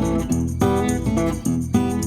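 Background music: country-style tune with strummed acoustic guitar on a steady beat.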